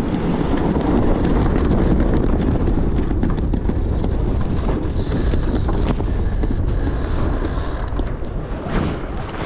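Wind buffeting the microphone and water rushing past the hull of a J109 sailboat sailing hard in 25–30 knot winds: a loud, steady noisy rush with no letup.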